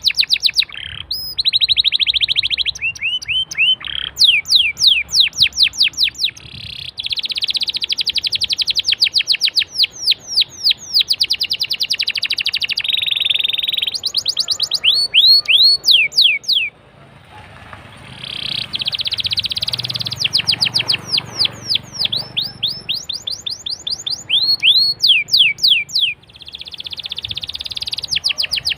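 Domestic canary singing: long rolling trills alternating with fast runs of sharp, downward-sweeping notes, with a brief pause a little over halfway through.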